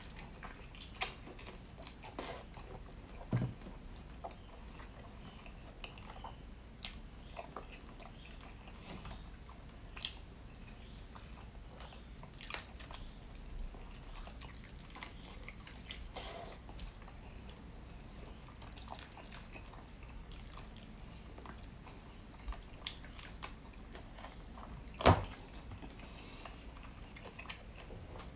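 Close-miked chewing and biting of rotisserie chicken, with wet mouth noises and scattered short clicks. A sharp click about 25 seconds in is the loudest.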